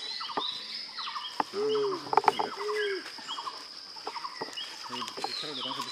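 Forest ambience: birds chirping over a steady high insect drone. About two seconds in come two short low-pitched calls and a few sharp clicks.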